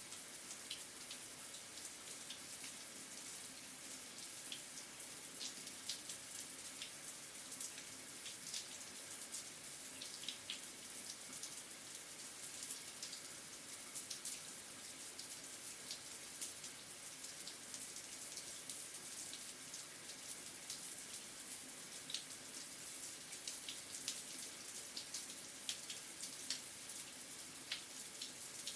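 Shower head running steadily: a constant high hiss of spray with many small splashing ticks of water striking a surface.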